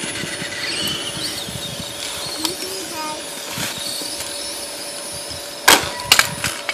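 Toy monster truck clacking onto asphalt, a few sharp hits about six seconds in. Children's voices are faint under a steady hum.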